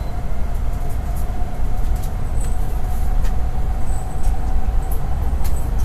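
Cabin noise of an N700S Shinkansen train gathering speed at low speed: a steady low rumble with a faint steady whine that fades about five seconds in.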